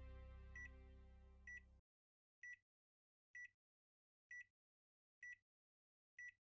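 Faint, sustained background music fading out and cutting off about two seconds in. Over it, a short, high electronic beep repeats about once a second, and the beeps go on alone after the music stops.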